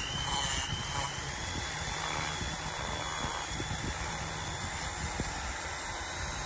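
Foredom flexible-shaft rotary tool with a Typhoon burr cutting into a wooden knife handle, running steadily with a high whine over the rasp of wood being ground away.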